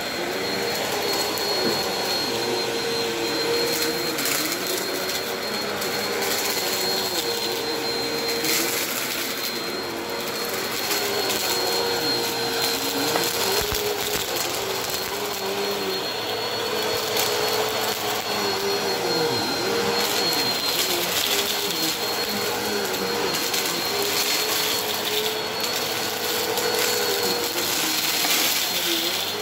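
Upright bagless vacuum cleaner running steadily on a shag rug, with a high whine over its hum. The hum dips in pitch and recovers every few seconds as the head is pushed and pulled through the pile, and grit crackles up into it.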